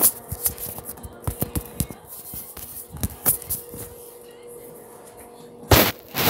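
Handling noise from the recording phone: irregular taps, knocks and rubbing on the microphone, with two loud scrapes near the end and a faint steady hum underneath.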